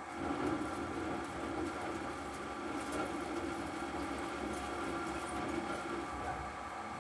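CNC lathe turning a bar: the spindle drive hums steadily while the turning tool takes a roughing cut along the outside diameter, with a grinding cutting noise and a fine crackle of curled chips breaking off and striking the guarding. The cut starts at the very beginning and eases for a moment near the end.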